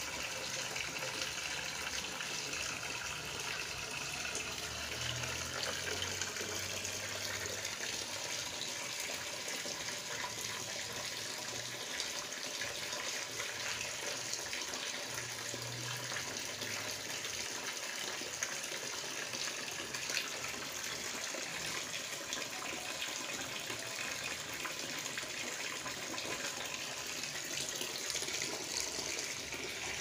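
Coconut milk pouring in a steady stream from a washing machine's drain pipe and splashing into a bucket already half full of it. The milk is being drained from grated coconut pressed in the machine.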